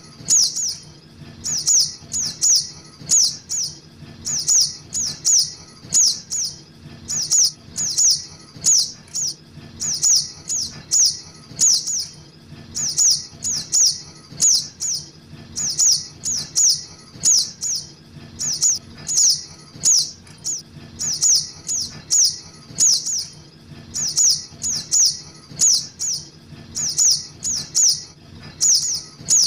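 Young sogok ontong (little spiderhunter) calling: short, sharp, high-pitched notes in quick groups of three or four, repeated steadily, as used for bird-luring.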